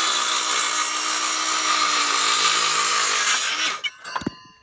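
Circular saw cutting through the top of a treated wooden fence post, loud and steady; the cut ends about three and a half seconds in and the motor winds down, followed by a short clunk.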